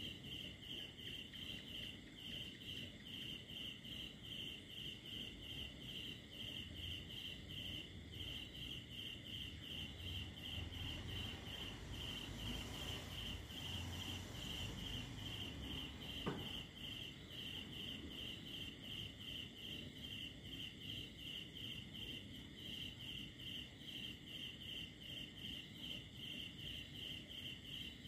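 Crickets chirping in a steady, unbroken rhythm of several short chirps a second. A single sharp click sounds a little past the middle.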